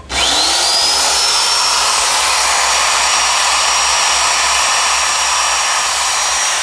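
Magnetic-base drill starting with a quick rising whine, then running steadily with a high whine over loud hiss as it is fed into the truck frame.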